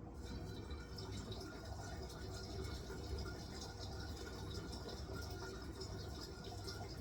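Hisense washing machine taking in water during its wool cycle: a steady rush of water running into the drum over a low machine hum.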